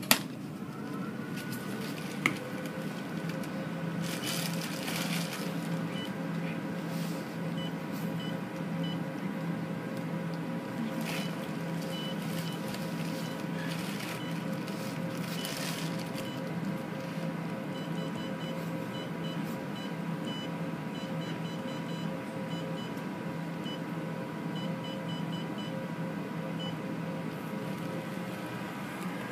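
Vertical hair-removal machine switched on with a sharp click, its cooling fans and pump then running with a steady hum and a thin whine that settles within the first couple of seconds. Short high beeps come in small runs from the touchscreen as settings are pressed.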